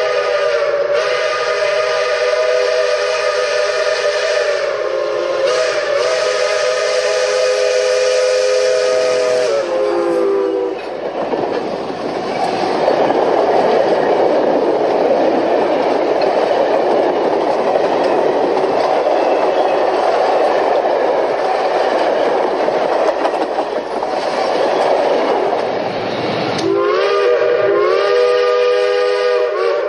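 Union Pacific 4-8-4 steam locomotive #838's three-chime whistle blows one long chord for about ten seconds, sagging in pitch as it closes. A long stretch of rushing noise from the passing train follows, and the whistle sounds again near the end, rising in pitch as it opens.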